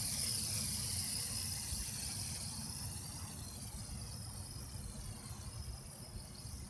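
Traxxas Alias mini quadcopter's rotors whining as it climbs away into the air, the pitch wavering with the throttle and slowly growing fainter. Wind rumbles on the microphone underneath.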